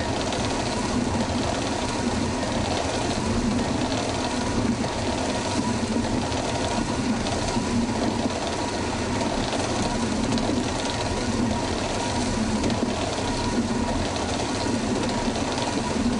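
Traditional stone corn mill running, its spinning upper millstone grinding maize kernels that trickle in from a feed chute: a steady grinding rumble with a low rhythmic pulse.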